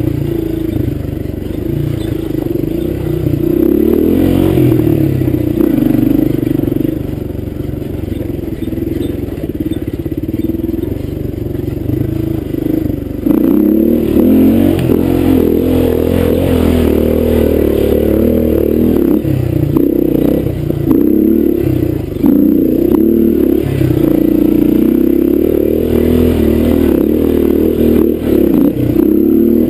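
Honda dirt bike engine running under shifting throttle on a rough dirt trail, with knocks and rattles from the bike over the bumps. The engine gets louder suddenly about halfway through.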